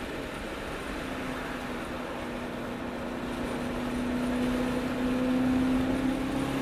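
BMW E92 M3's 4.0-litre V8 through the M Performance Inconel exhaust, running at a steady road speed: one steady exhaust note that slowly rises in pitch and gets louder toward the end as the car picks up speed, under constant wind and road noise.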